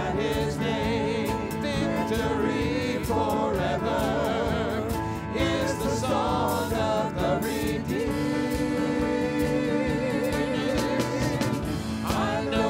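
Church worship music: several voices singing a praise song over sustained instrumental accompaniment.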